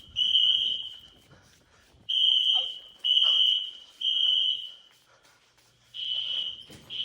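Fire alarm beeping a high, loud tone in the temporal-three evacuation pattern: groups of three beeps of just under a second each, with a pause of about a second between groups. The alarm was set off by a smoke detector.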